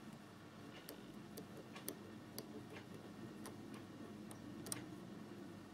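Faint, irregular small clicks of a lock pick working the pin stacks inside a five-pin Baldwin door lock cylinder under tension, during single-pin picking.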